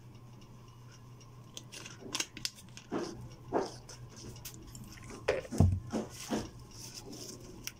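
Small clicks and taps of a plastic soda bottle and its screw cap being handled, with one louder thump about two-thirds of the way through. A steady low hum runs underneath.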